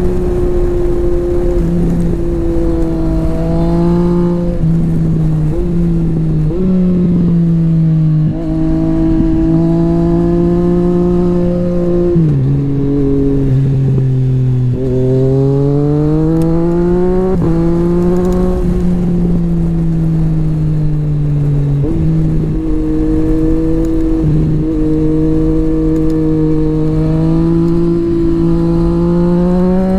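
Motorcycle engine running under way. Its pitch holds fairly steady with several brief dips, sinks for a few seconds near the middle as it slows, then rises again as it accelerates.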